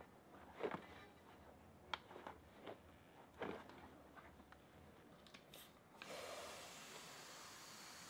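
Rubber mountain-bike tyre being pushed and worked onto its rim by hand: a few short rubbing squeaks and creaks, the loudest about half a second and three and a half seconds in. A faint steady hiss comes in near the end.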